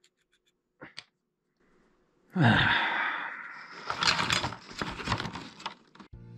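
A man's loud sigh, then a few seconds of rustling and scraping handling noise with many small clicks.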